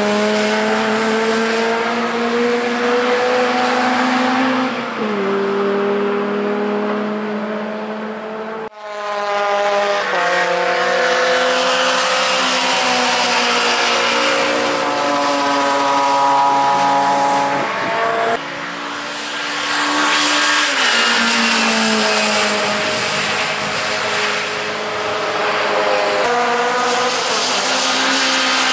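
Austin Mini Cooper S Mk1's 1275 A-series four-cylinder engine running hard on track, its revs climbing and dropping with gear changes. The sound breaks off abruptly twice, about a third and two-thirds of the way through, each time carrying straight on with the engine at a different pitch.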